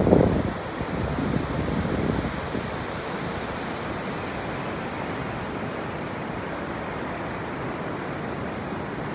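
Ocean surf washing onto a sandy beach: a heavier rush of breaking water in the first couple of seconds, settling into a steady hiss of surf.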